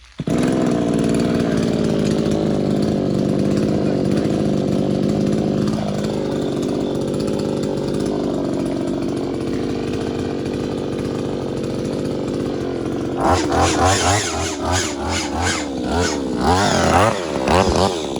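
Brush cutter's small petrol engine with a hedge-trimmer head starting up and running steadily at idle, then revved in a quick series of throttle bursts from about two-thirds of the way in, the trimmer blades chattering.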